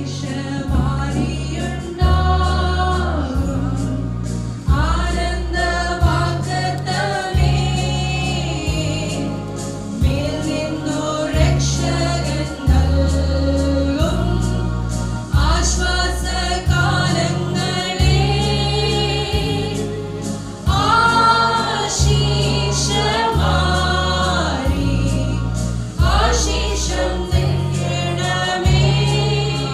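A Christian worship song sung over a steady bass line that moves to a new note about once a second.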